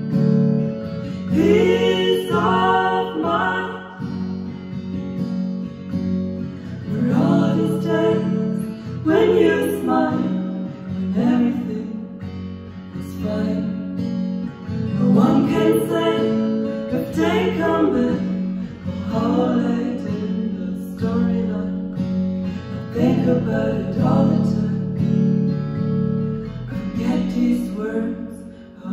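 Acoustic guitar strummed under a wordless female vocal, humming or sung vowels, layered with harmony voices from a TC Helicon vocal harmony processor.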